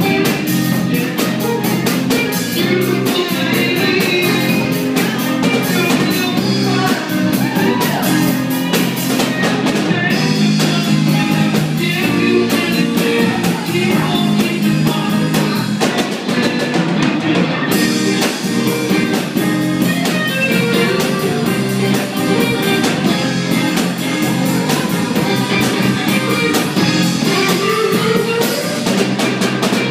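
Live busking band of electric guitar and drum kit playing music with a steady drumbeat.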